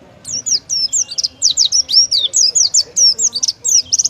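Oriental white-eye (pleci) singing a loud, rapid, continuous song of quick high-pitched sweeping notes, ending in a fast trill.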